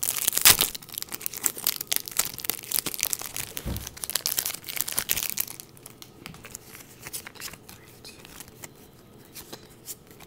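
Foil Pokémon booster pack wrapper being torn open and crinkled, a dense crackling for about the first five seconds, then dying down to sparse, quieter clicks as the cards are handled.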